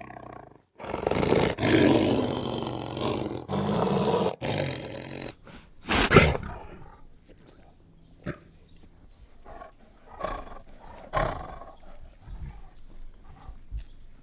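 Big cat growling and roaring loudly for about five seconds, with one sharp loud call near six seconds in. Then comes a run of shorter, quieter rasping grunts about once a second.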